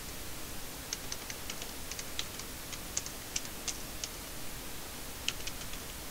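Typing on a computer keyboard: a string of irregular, light keystroke clicks with a short pause about four seconds in, over a steady background hiss.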